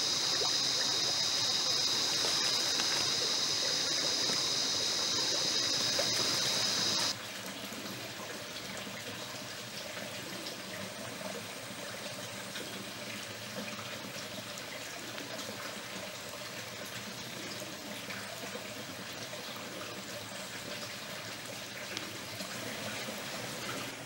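Small rainforest stream running and trickling steadily. For the first seven seconds a loud, steady high-pitched hiss lies over it and cuts off abruptly; after that only the softer trickle of the stream remains.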